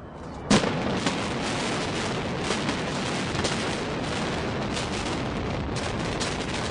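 Explosive demolition charges firing in a rapid string as a concrete domed stadium is imploded: one sharp bang about half a second in, then a dense, continuous rattle of detonations with louder cracks every second or so.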